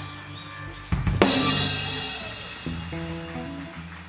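Live rock band ending a song: a flourish of drum hits with a cymbal crash about a second in, another hit later over held guitar and bass notes, all ringing out and dying away.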